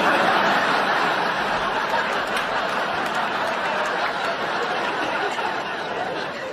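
Studio audience laughing, loud at first and slowly dying down over several seconds.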